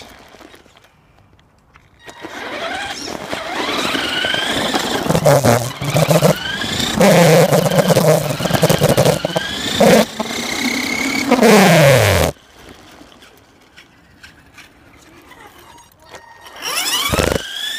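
Radio-controlled car heard up close from its own onboard camera. Its motor whines up and down in pitch as it speeds up and slows, over a rough rattle of the wheels on the tarmac, and this cuts off suddenly about twelve seconds in. A short rising whine comes again near the end.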